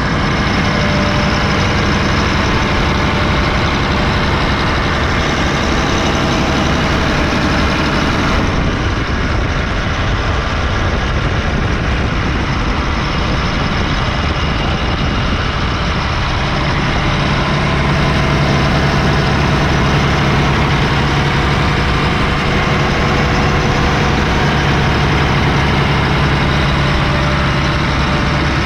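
Doosan DX520LCA-K tracked excavator's diesel engine running steadily at idle. About eight seconds in the higher sounds drop away, and a little past halfway the low hum grows stronger.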